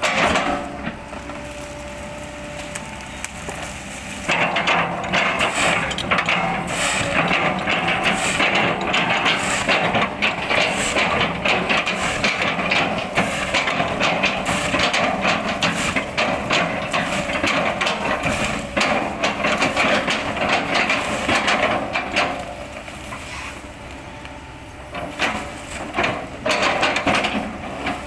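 Excavator bucket chopping into a felled oil palm trunk: dense cracking and splintering of fibrous wood over the steady diesel engine. The chopping starts about four seconds in, stops a little after twenty seconds, and comes back briefly near the end.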